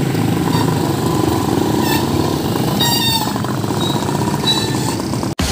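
Street din of motorcycle-sidecar tricycles running, with a few brief high-pitched tones over the steady engine noise. It cuts off abruptly near the end.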